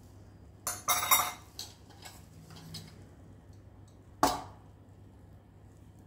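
Stainless steel spice box and its small metal cups clattering as they are handled, a quick run of clinks about a second in, then one sharp metallic clink about four seconds in as a spoonful of spice is lifted out.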